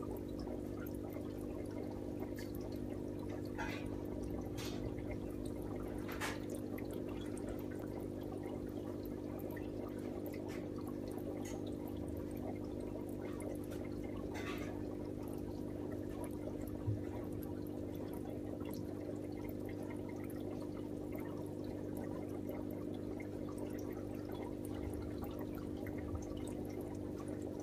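Water trickling and splashing in a fish tank over a steady low hum, with a few short splashes.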